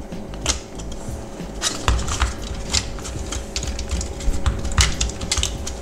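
Irregular sharp plastic clicks and taps as the clip-fastened white plastic holder of a VW instrument cluster is pressed from behind and worked loose from its clips.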